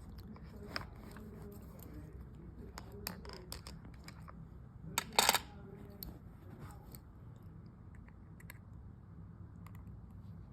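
Small precision screwdriver clicking and scraping against the tiny screws of an iPhone, with scattered light ticks and a sharper double click about five seconds in.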